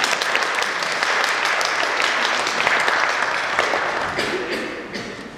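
Audience applauding, a dense patter of many hands clapping that holds steady and then dies away in the last second or so.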